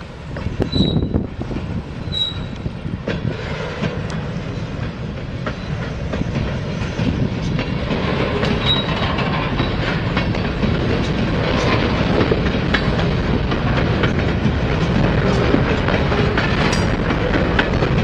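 Freight train cars rolling past, wheels clicking over the rail joints, with a few short high flange squeals near the start; the rumble grows louder partway through.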